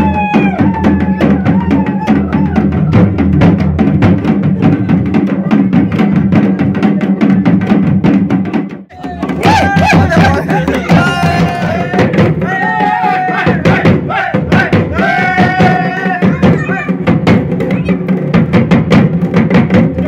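Dhol drumming, a fast run of beaten strokes with a high wavering melody carried over it. The music breaks off for a moment about nine seconds in, then the drumming and melody start again.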